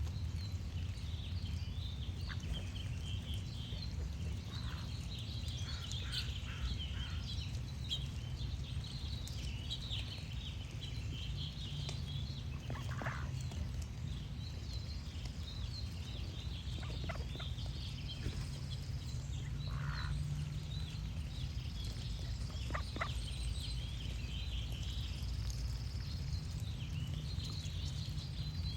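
Songbirds chirping and singing continuously over a steady low rumble, with a few short duck quacks scattered through.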